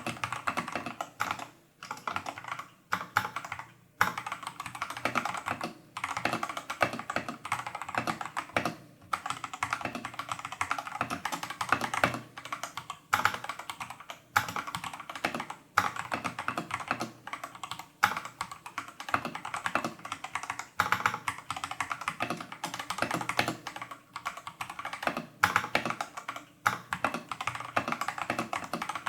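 Typing on a Tester68 mechanical keyboard with clone Holy Panda tactile switches and XDA-profile keycaps, stock with only factory lube. A dense, quick run of keystroke clacks stops in short pauses now and then.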